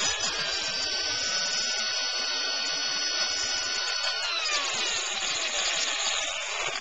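Bosch PSB corded drill running steadily with a paddle mixer, stirring clay casting slip in a bucket. About four seconds in, its whine falls in pitch as the drill slows down.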